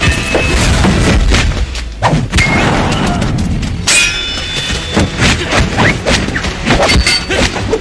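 Film fight sound effects: a rapid series of thuds and hits over a low rumble, including a ringing clang about four seconds in, with background music.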